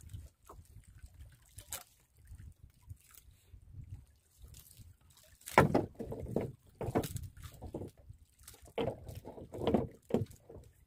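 Water sloshing and splashing inside a small wooden outrigger boat's hull as fish and gear are handled, with a few knocks against the wood. It is faint at first, with louder sloshes in bunches from about halfway in.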